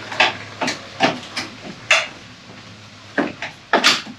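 A 2020 Toyota Tacoma's plastic grille assembly being pushed back onto the truck, its bottom tabs knocking and clicking into their slots. It is a string of sharp plastic knocks and rattles, with the last few close together near the end.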